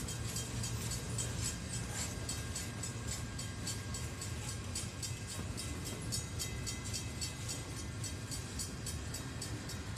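Intermodal freight cars loaded with highway trailers rolling past at speed: a steady low rumble of wheels on rail, with rapid, regular clicking.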